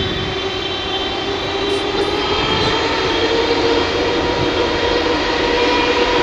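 Boeing 777 jet engines running on the ground, a steady hum with a held whine that rises slightly in pitch and grows a little louder.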